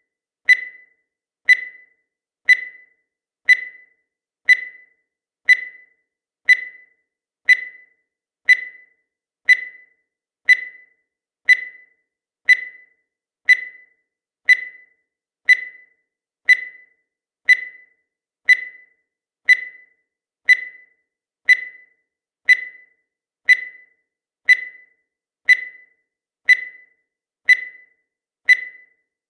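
Countdown timer sound effect: a short electronic beep once every second, each one sharp at the start and dying away quickly, in a perfectly even rhythm.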